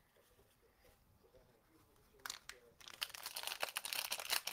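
Plastic wrapping of trading-card packs being crinkled and torn open. The crinkling starts a little past halfway as quick, irregular crackles, after a quiet first half.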